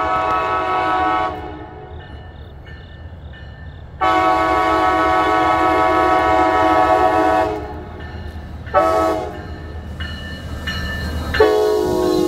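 Amtrak locomotive air horn blowing the grade-crossing pattern of long, long, short, long. A long blast ends about a second in, a second long blast follows, then a short blast, and a final long blast starts near the end, all over the train's steady low rumble.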